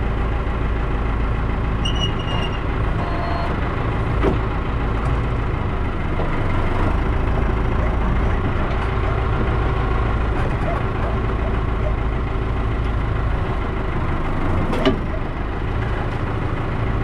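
Case tractor's engine running steadily, with a sharp knock about four seconds in and another near the end, and a brief high chirp about two seconds in.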